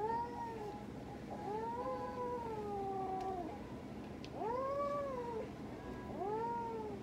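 Domestic cat yowling in four drawn-out cries that rise and fall in pitch, the second one long, in protest while held down and having a wound flushed with a syringe.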